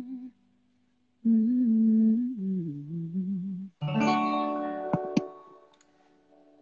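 A woman hums a short wordless melodic phrase, then a chord strummed on an acoustic guitar rings out and slowly fades, with a couple of light string clicks as it dies away.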